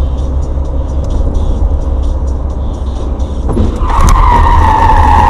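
Steady road and engine rumble heard from inside a car, then a sharp bang and a loud tyre squeal lasting about two seconds as a car ahead crashes and rolls over.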